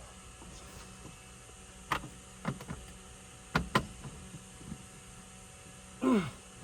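Several sharp clicks and light knocks of small parts being handled as the ignition lock cylinder is worked into the dash, over a steady hum. Near the end, a short, louder sound falls steeply in pitch.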